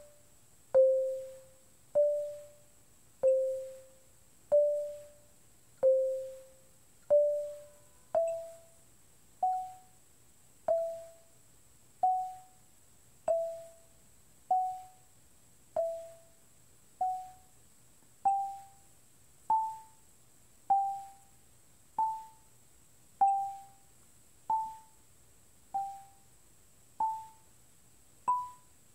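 Marimba struck with yarn mallets, one slow, even note at a time, about one every second and a quarter. The notes rock between two pitches a third apart and climb step by step up a G major scale, each ringing briefly and fading.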